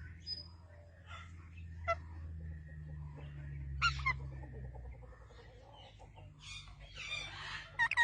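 Parrot calling in short squawks: brief chirps about two and four seconds in, then a longer raspy screech near the end, over a low steady hum.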